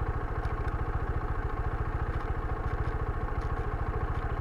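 Motorcycle engine running steadily with an even, rapid low pulse.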